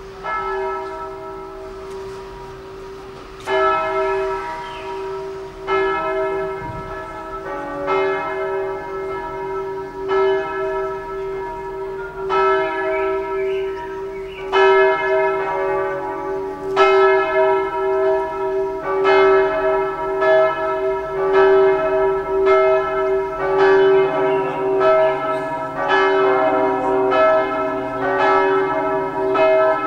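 Church bells ringing in a swinging peal, each stroke leaving a long hum. Strokes come a couple of seconds apart at first, then faster and overlapping from about halfway through as the peal builds.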